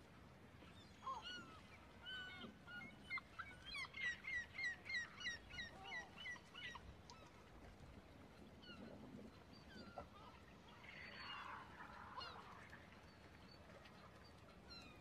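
Birds calling. The loudest part is a rapid run of about a dozen short, repeated calls, roughly four a second, from about four to nearly seven seconds in. Scattered single calls come before and after it.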